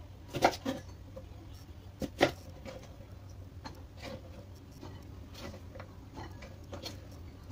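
Kitchen knife cutting yardlong beans on a wooden cutting board: irregular sharp knocks of the blade reaching the board, loudest about two seconds in, with lighter taps after.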